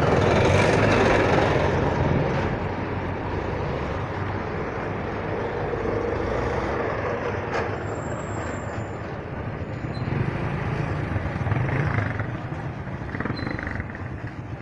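Street traffic: vehicles running and passing on a town road, loudest in the first couple of seconds as one passes close, then a steadier background of traffic.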